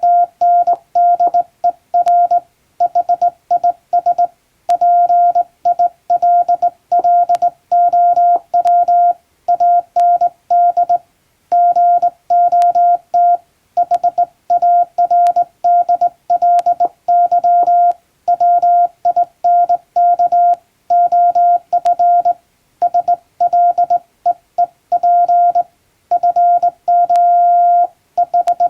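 Morse code sent by hand on a JRC telegraph key: a steady mid-pitched tone keyed on and off in short dits and longer dahs, in letter and word groups of an English telegram text, with occasional faint key clicks.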